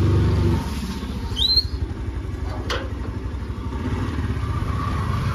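Petrol scooter engine running at idle just after being started, with a short high chirp about a second and a half in.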